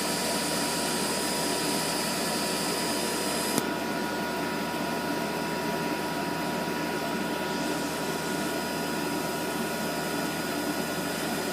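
Webasto HL90 diesel heater running down after switch-off, fuel pump stopped: a steady fan whir with a faint steady tone. About three and a half seconds in there is a click and the high hiss drops away, easing again a few seconds later.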